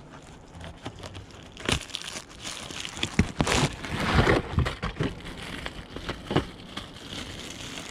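Plastic bag crinkling and rustling in irregular handfuls, with sharp crackles, as a new cabin air filter still in its wrapping is handled.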